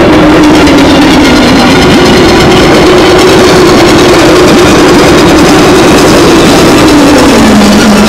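Noisy electronic music: a loud, dense wall of distorted synthesizer noise over a low droning synth tone that slides down in pitch near the end.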